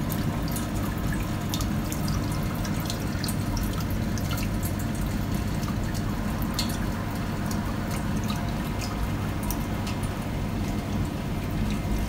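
Water pouring and dripping out of a generator engine's open oil filler neck, over a steady low hum: the crankcase has filled with water through a split exhaust connection to the heating system.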